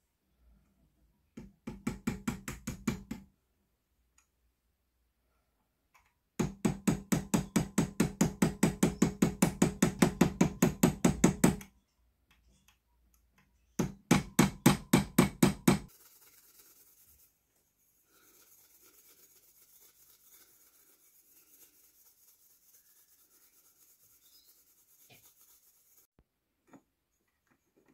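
Claw hammer rapidly striking metal held in a bench vise, each blow ringing, about five or six blows a second. The blows come in three runs, the longest lasting about five seconds. After that there is only a faint hiss.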